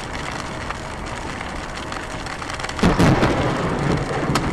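Steady rain, then about three seconds in a sudden loud thunderclap from a lightning strike that crackles and rumbles on.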